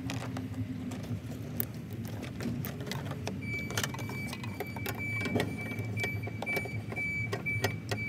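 Hands working behind a car headlight, fitting an LED headlight bulb into its socket: scattered light clicks and knocks of plastic parts being handled, over a steady low hum. A thin, steady high tone comes in a little over three seconds in.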